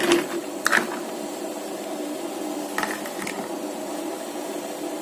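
Clams boiling in a pot of water as their shells open, a steady even hum with a few sharp clicks of shell knocking on shell: two near the start and two about three seconds in.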